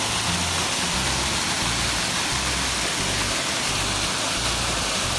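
Steady rush of moving water, a continuous even noise with no breaks.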